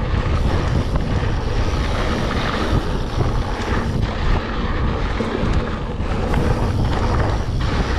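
Wind rushing over the microphone of a GoPro on a moving mountain bike, a steady low rumble and hiss, with the rolling noise of the bike on a dirt trail and a few faint knocks.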